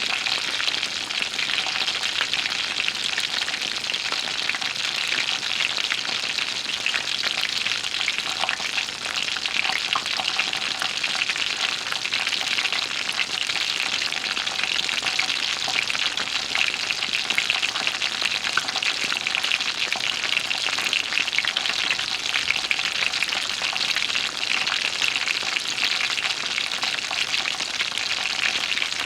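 Food sizzling in a hot cooking pan: a steady frying hiss full of fine spitting crackles.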